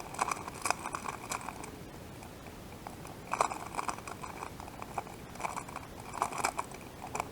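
Plastic 2x2 speedcube being turned by hand: quick runs of rattling clicks from the layers, in three bursts with short pauses between.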